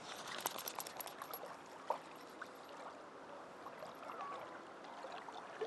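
Small waves washing on a sandy shore: a steady, gentle rush of water, with scattered light clicks and taps in the first second and a half.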